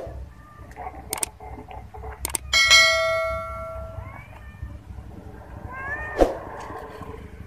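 A sharp metal clang that rings on and fades over about a second and a half, followed by a cat meowing twice in short calls that rise and fall in pitch.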